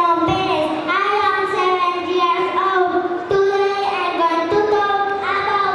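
A child singing, with several long held notes.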